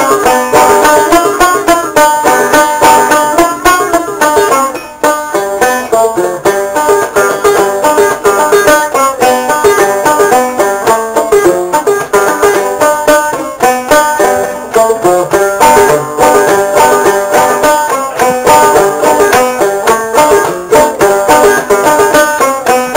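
Banjo music with fast, picked notes.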